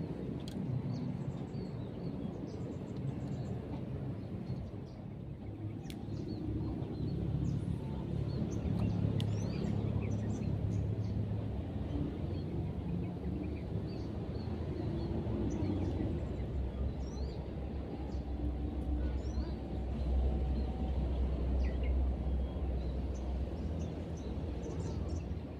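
Outdoor ambience with a steady low rumble and many brief, faint high chirps of small birds scattered throughout.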